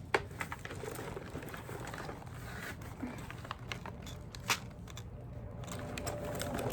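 Packaging being unwrapped and handled: crinkling and rustling with scattered small clicks and taps, the sharpest just after the start and again about four and a half seconds in.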